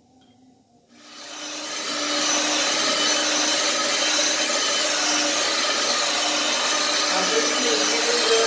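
Small electric kitchen motor, most likely a hand mixer beating cake batter, switching on about a second in, winding up to speed over a second and then running steadily with a whine.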